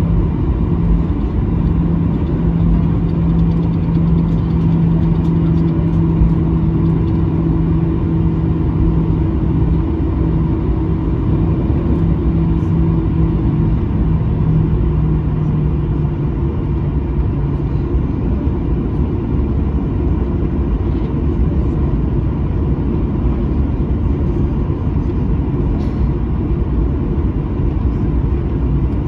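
Cabin noise of a Boeing 737-900ER taxiing, its CFM56-7B engines at idle thrust under a steady rumble of airframe and wheels. A hum in the engine noise fades out about halfway through.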